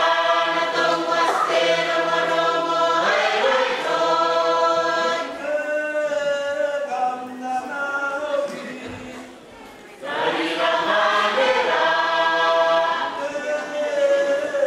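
A group of voices singing in chorus: the sung accompaniment to a Pacific Island cultural dance, in long held phrases. The singing thins and drops after about five seconds, then comes back strongly at about ten seconds.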